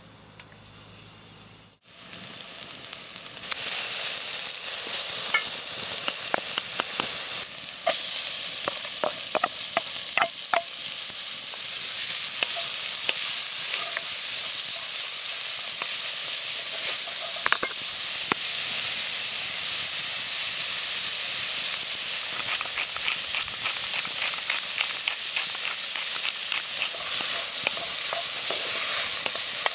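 Food frying in a pan and sizzling, with scattered pops and the clicks of stirring. The sizzle starts about two seconds in and grows louder a second or two later.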